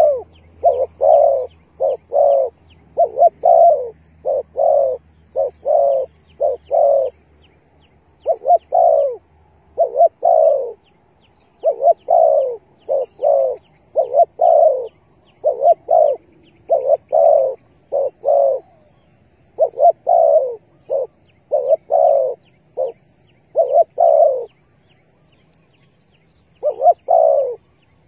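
Spotted dove cooing over and over in its usual phrases of short, hollow coos, with a pause of about two seconds near the end. Faint rapid chirping from another small bird runs above it.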